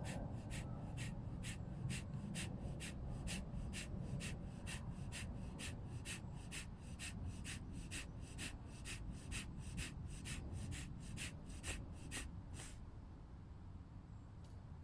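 Kapalabhati breathing: a rapid, even series of sharp, forceful exhalations through the nose, about two a second, that stops near the end.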